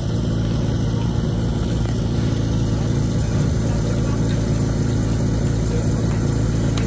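Portable fire-sport pump's engine running steadily at idle, a constant low hum.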